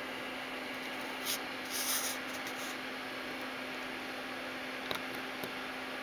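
Steady background hiss with a faint steady hum, broken by brief rubbing, scratching noises about one and a half to two seconds in and two small clicks about five seconds in, typical of a handheld camera being handled.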